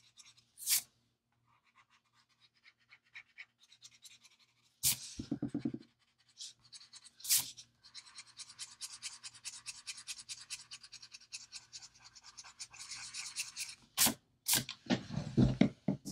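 An eraser rubbing back and forth on a coloring-book page in quick, even strokes, lifting the pencil sketch from under freshly dried fine-liner ink. A few louder bumps and brushes of the hand and paper come between the runs of rubbing and near the end.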